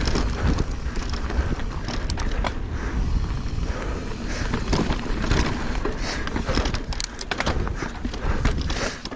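Mountain bike descending rocky dirt singletrack at speed: tyres crunching over dirt and stones, with frequent sharp knocks and rattles as the bike hits rocks, over a steady low rumble.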